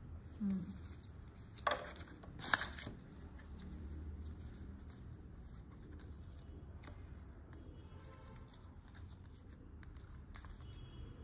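Plastic-coated playing cards handled and fanned out in the hands: two short, sharp swishes of cards sliding against each other about two seconds in, then quieter rustling as the cards are spread.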